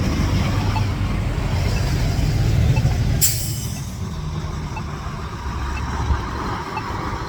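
A heavy vehicle's engine rumbling past on the street, with a short, sharp hiss of air brakes about three seconds in. A faint distant beep repeats about once a second.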